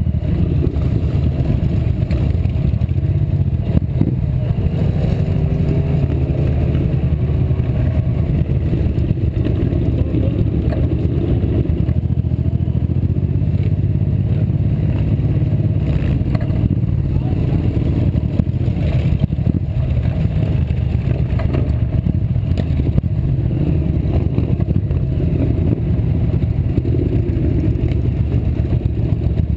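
Motorcycle engines running at low speed in a slow procession of bikes, heard from on board one of them: a steady, deep engine sound with no pauses.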